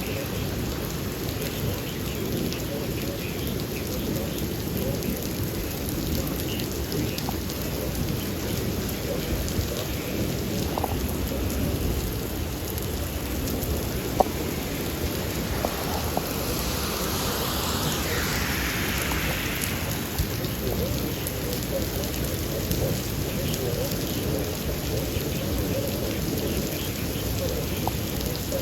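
Thunderstorm with steady heavy rain and rumbling thunder. A louder hiss swells for a few seconds past the middle, and there is a single sharp tap about fourteen seconds in.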